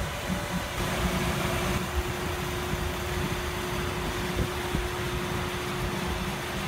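Steady mechanical hum of running machinery, with a faint constant tone that sets in about a second in.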